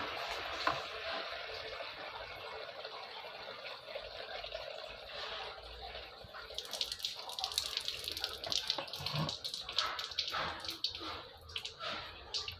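Water running steadily out of a disconnected tube of an RO water purifier as its antiscalant filter is flushed. From about halfway, sharp crackling and clicks come in over the flow.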